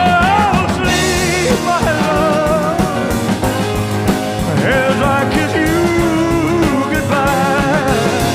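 Music: a slow band recording with a wavering, vibrato-laden lead melody over a steady rhythm section, with one long held low note a little past the middle.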